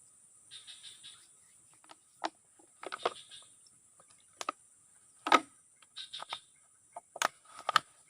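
Irregular sharp knocks and clicks, about half a dozen, the loudest a little past halfway, over a faint steady high hiss.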